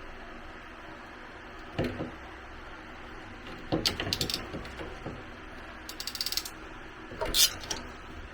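Hand tools and plumbing fittings being handled: scattered clicks and knocks, with a short burst of rapid ratchet-like clicking about six seconds in and the loudest knock soon after.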